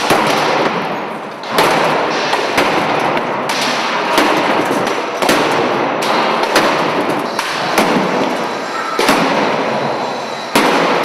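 Sledgehammers and poles repeatedly smashing household appliances: irregular heavy crashing blows on metal casings, one after another, over a constant loud din.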